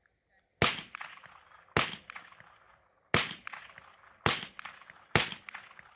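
Five shots from a Mossberg 715T semi-automatic .22 LR rifle, fired steadily about a second apart, each sharp crack trailing off in a short echo.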